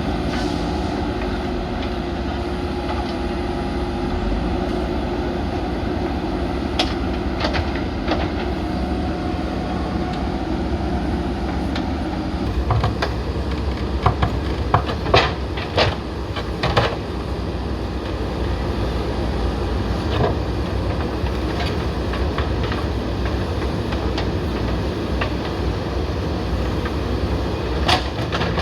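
A JCB backhoe loader's diesel engine running steadily under load, with sharp clanks and knocks of the bucket working against concrete slabs, several close together about halfway through and again near the end.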